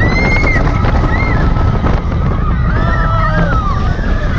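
Riders screaming on a roller coaster, several high sliding cries over a heavy, steady rumble of wind on the microphone.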